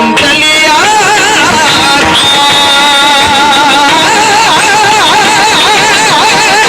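Marathi devotional bhajan music: a loud, continuous melody line with quick ornamented pitch wiggles over a dense accompaniment.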